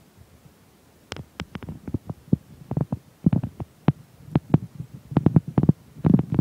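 A quick, irregular run of sharp knocks and taps, starting about a second in and coming several to a second in uneven clusters, then cutting off abruptly.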